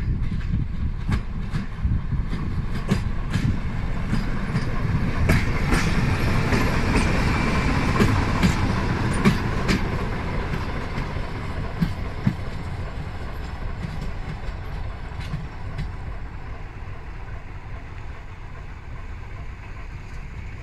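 BDZ class 55 diesel locomotive running slowly past: the diesel engine rumbles while the wheels click over rail joints. It grows loudest about halfway through as it passes, then fades as it moves away.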